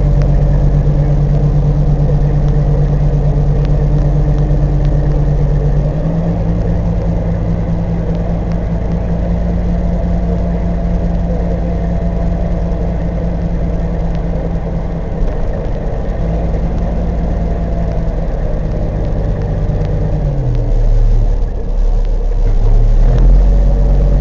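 Peterbilt 379's diesel engine idling with the truck standing still, a steady hum that steps up in pitch about six seconds in, dips near the end, then rises again.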